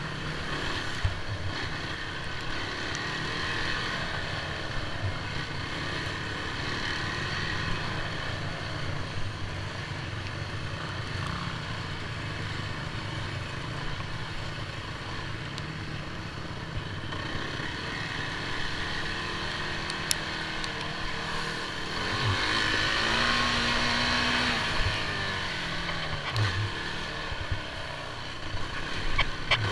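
Off-road vehicle engine running steadily while riding, heard from on board. It grows louder and revs higher for a few seconds past the middle.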